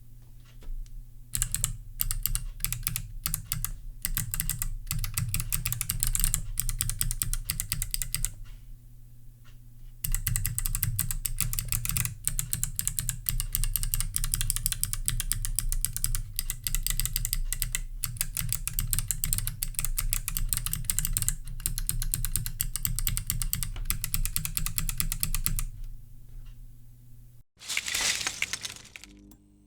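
Kailh BOX Jade clicky switches on a small eight-key 3D-printed macropad, pressed rapidly at random: dense crisp clicks in two long runs, with a break of about a second and a half around the eighth second. A short rushing noise comes near the end, after the typing stops.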